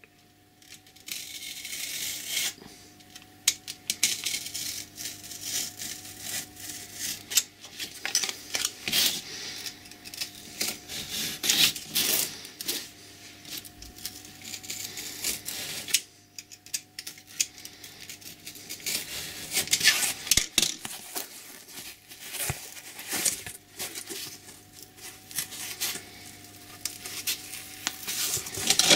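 Snap-off utility knife blade cutting through a hard felt pad: irregular scratchy, rasping strokes with small clicks, pausing briefly near the start and again about halfway through.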